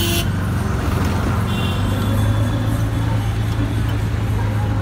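Auto-rickshaw's small engine running steadily under way, heard from inside the open cabin, with traffic noise around it. A short horn toot sounds right at the start.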